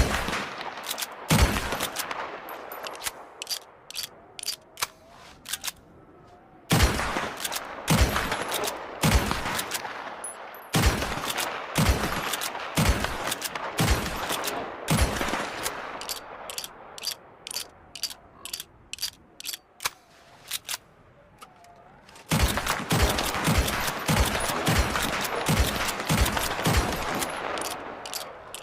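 Volcanic lever-action pistol sound effect: several strings of shots in quick succession, each shot with an echoing tail. Sharp mechanical clicks of the lever action fall between and after the shots, with short pauses between the strings.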